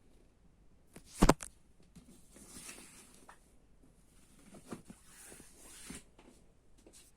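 A pram being handled: one sharp click about a second in, then soft rustling with a few light knocks.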